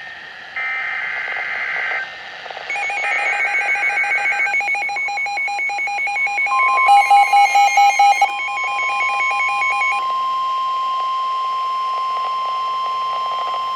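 Emergency Alert System tornado warning tones: two short bursts of screechy data tones (the SAME header), then rapid electronic alarm beeping several times a second, joined about halfway through by a steady single tone near 1 kHz, the weather radio warning alarm tone, which holds on after the beeping stops.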